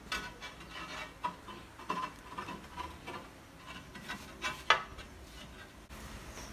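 Ceramic tile being set on a stair tread: irregular scraping, rubbing and clinking of tile against the tread, with a sharp knock a little under five seconds in.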